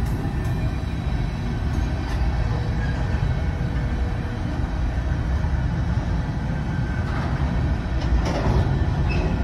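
Freight train of open-top hopper cars rolling past: a steady low rumble of steel wheels on rail, with louder clatter and a brief squeak about eight seconds in.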